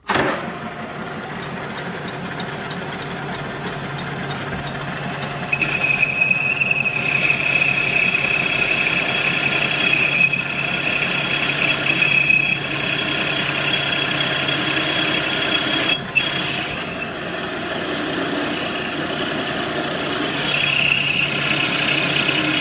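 Metal lathe switching on and running steadily, its spindle and gearing humming, while the tool cuts a tapered point on the end of a metal bar. A high steady tone rises over the hum from about five seconds in to about twelve seconds, and again near the end, during the cutting.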